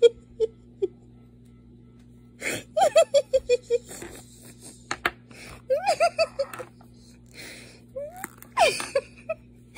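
A person laughing in two runs of quick, repeated 'ha-ha' bursts, followed near the end by short rising gasping cries.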